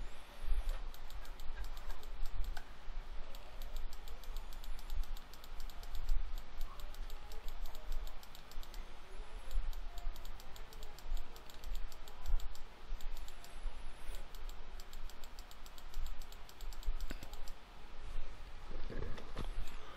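Irregular clicking of a computer keyboard and mouse, several clicks a second, over a low rumble.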